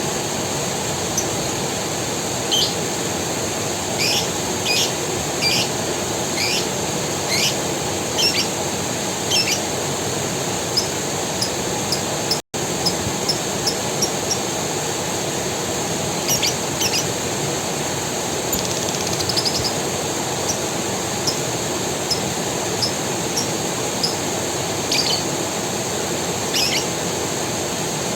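Creek water running steadily, with a high steady hiss over it and frequent short, high chirps from birds. The sound cuts out for an instant about twelve seconds in.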